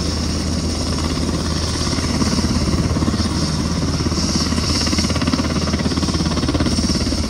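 Helicopter running nearby: a steady, rapid thudding of the rotor with a high hiss or whine above it.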